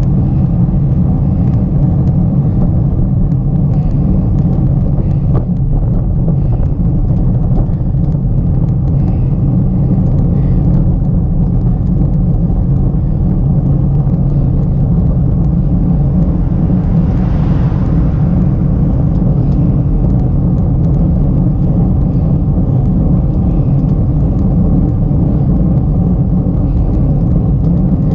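Steady low rumble of a vehicle driving along a road, heard from a camera mounted on it, with engine and road noise running evenly throughout. A brief rise of hiss comes about two-thirds of the way through.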